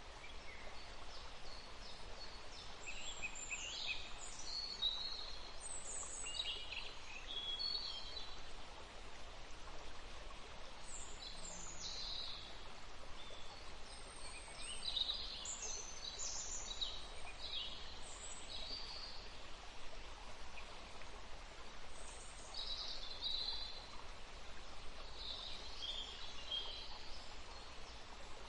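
Several songbirds chirping and singing in short trills and phrases over a steady, soft background hiss.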